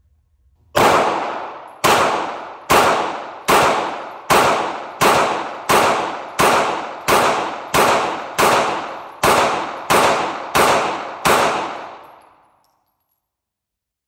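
Bul SAS II Ultralight 3.25 9mm pistol firing fifteen shots in steady succession, a little under a second apart, each with a ringing echo tail. The firing stops after the fifteenth because the sixteenth round fails to feed.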